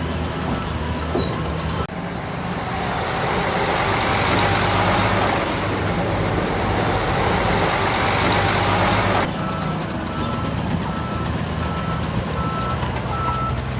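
Heavy diesel engine of a bulldozer running, with a reversing alarm beeping repeatedly at the start and again from about two-thirds of the way in. In between, after a brief break about two seconds in, a louder rushing noise covers the beeps.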